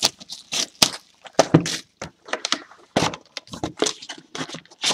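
Plastic shrink wrap crinkling and crackling as it is pulled off a trading card box, in many sharp, irregular crackles.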